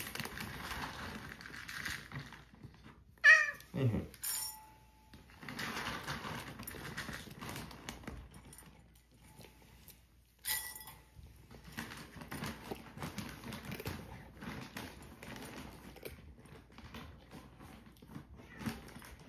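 A cat meows once about three seconds in, a single loud call falling in pitch. About ten seconds in, dry kibble is poured from a plastic scoop into a ceramic bowl with a brief clatter, and then the cat crunches the dry food in quick, steady bites.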